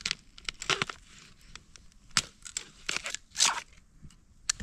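Dry bamboo leaf litter and stalks crackling and snapping: a run of separate sharp cracks and crunches, the longest about three and a half seconds in.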